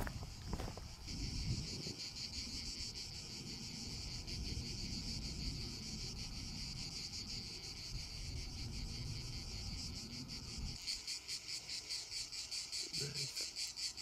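Cicadas shrilling: a steady high-pitched buzz that, about eleven seconds in, turns to an even pulsing of about four beats a second. A low rumble underneath stops at that same point.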